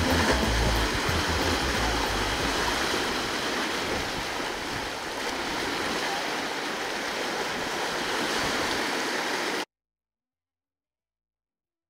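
Waves washing on a rocky shore: a steady rushing, with some low rumbling in the first two seconds. It cuts off suddenly near the end.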